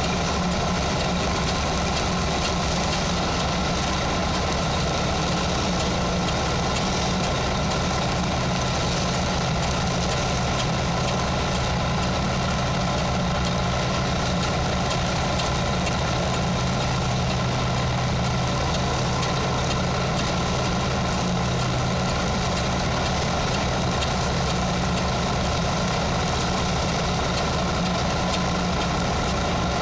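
Stick (SMAW) welding arc burning a 4 mm electrode, with a steady crackle and no breaks, over a constant low machine hum.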